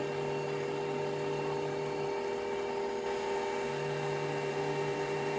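KitchenAid stand mixer running steadily with a fettuccine cutter attachment on its hub, as a sheet of fresh pasta dough is fed through and cut into strands.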